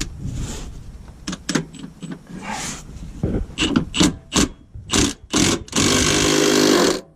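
Knocks, clatters and scrapes of tools and wooden blocks being handled while setting up to remove a truck gearbox, followed near the end by about a second of steady mechanical whirring that stops abruptly.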